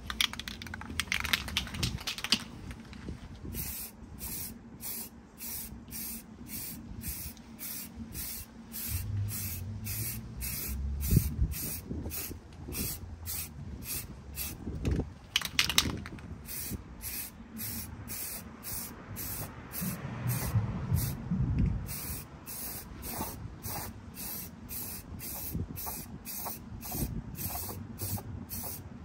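Paint being sprayed: a steady hiss with louder bursts near the start and again about halfway through, and a few low knocks between.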